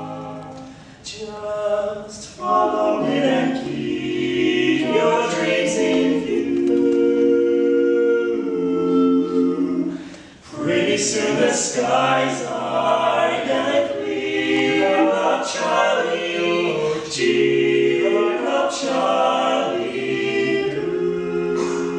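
Male barbershop quartet singing a cappella in close four-part harmony, sustaining long chords. The singing breaks briefly between phrases about a second in and again about ten seconds in.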